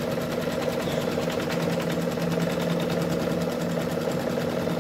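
Brother Quattro 2 6700D embroidery machine stitching at a steady, rapid, even rhythm. It is sewing the placement outline onto stabilizer in the hoop.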